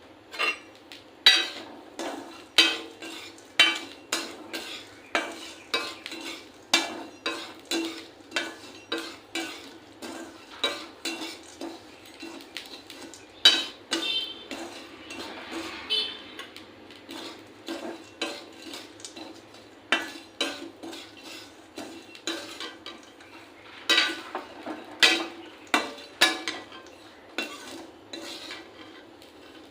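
A metal spoon or spatula scraping and clinking against a pan as peas are stirred while roasting, about one and a half strokes a second, with a few louder clanks.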